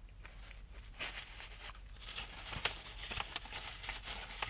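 Crackling, crinkling noises of eating a Popeyes pumpkin cream pie with a crisp, sugary crust, with a dense patch of crackle about a second in.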